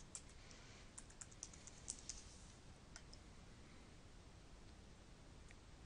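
Faint computer keyboard typing in near silence: a quick run of keystrokes in the first two seconds, two more about three seconds in, and a single click near the end, as login details are typed in.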